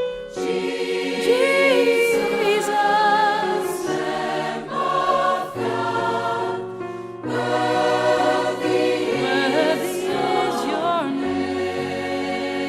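Worship song: voices singing with choir and instrumental backing.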